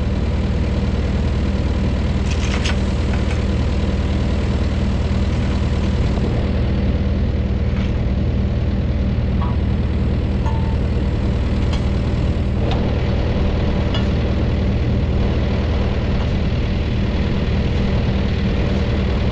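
Large engine idling steadily, with a few light clicks.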